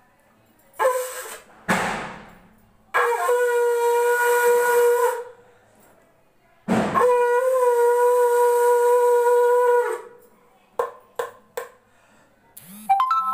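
Conch shell (shankh) blown in long, steady, single-pitch blasts, one of about two seconds and one of about three. Between the blasts come breathy puffs and short sputtering toots, and another blast starts right at the end.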